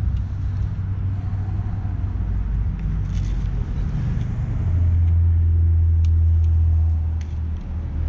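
A motor vehicle's engine running, a low steady hum that grows louder for about three seconds past the middle and then drops back, with a few faint light clicks.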